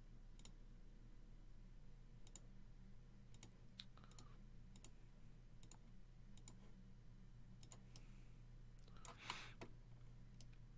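Faint, scattered single clicks of a computer mouse, about a dozen spread unevenly over the stretch, over a steady low electrical hum. A short rushing noise comes about nine seconds in.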